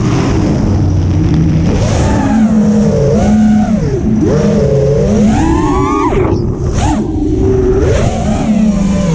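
Freestyle FPV quadcopter's brushless motors and propellers whining, the pitch rising and falling repeatedly with the throttle, climbing high and dropping sharply about six seconds in, over wind rush on the onboard microphone.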